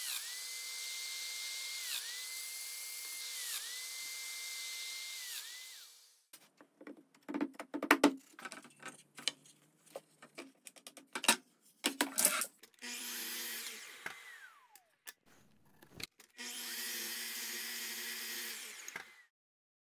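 Table saw running through a cut for about six seconds, its steady high whine dipping briefly a few times as the blade takes the wood. Then a run of sharp clicks and knocks as bar clamps are set and tightened on a glued-up panel. Then a sliding miter saw spins up and cuts, its whine falling away as the blade winds down, followed by another short saw run.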